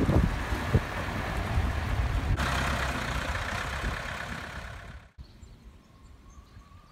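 Heavy diesel engine of a wheeled loader running steadily as it moves a boat cradle, with a couple of sharp clanks near the start. The engine cuts off about five seconds in, leaving faint background.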